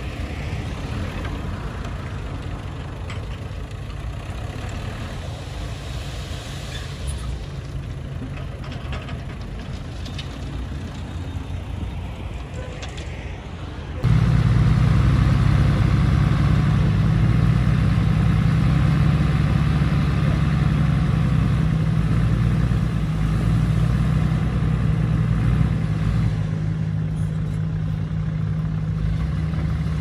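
Diesel engine of heavy earthmoving machinery running steadily. About halfway through it suddenly becomes much louder and deeper, and stays that way.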